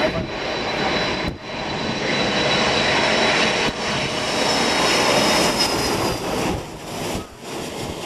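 Boeing 747's four jet engines on final approach, passing low overhead with gear down: a loud rush of jet noise that builds and then eases, with a high fan whine that drops in pitch as it goes past.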